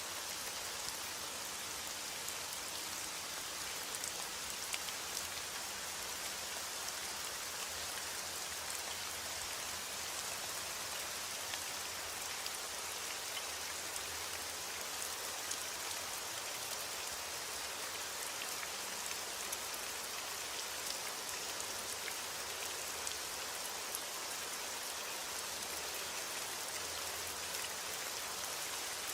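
Steady rain falling, an even hiss with scattered small drop strikes.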